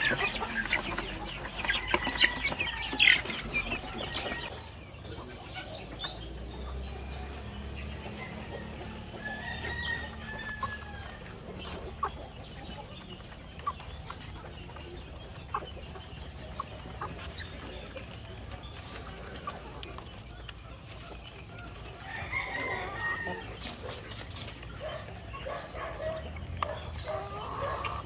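Chickens clucking and calling, with busy flapping and scuffling in the first few seconds, then a quieter stretch of scattered short taps and occasional calls that pick up again near the end.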